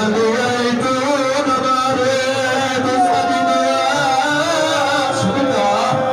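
A man's voice chanting a melodic religious recitation into a microphone, in the sung style of a zakir at a majlis. He holds long notes that waver and slide in pitch.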